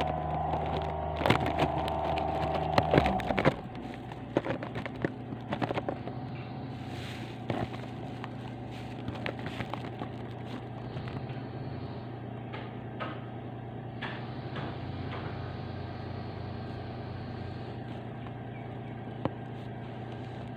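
A steady mechanical droning hum that cuts off suddenly about three seconds in. A fainter steady low hum carries on after it, with scattered faint clicks and knocks.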